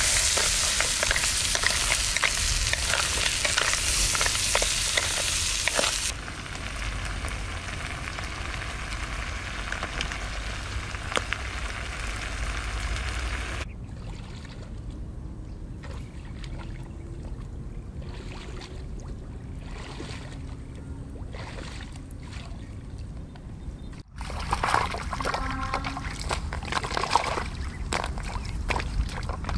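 Snails and chopped peppers sizzling in a frying pan as a wooden spatula stirs them. After cuts the sound drops to a quieter outdoor stretch, and about six seconds before the end water splashes and sloshes as snails are gathered by hand.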